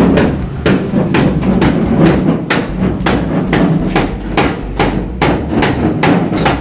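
Rubber mallet tapping tiles into place: a steady run of quick knocks, about three to four a second.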